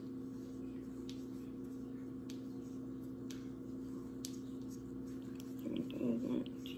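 Steady low electrical hum with faint scattered ticks and rubbing as an alcohol pad is wiped around a freshly placed insulin pump infusion site on the skin. A brief murmured voice about six seconds in.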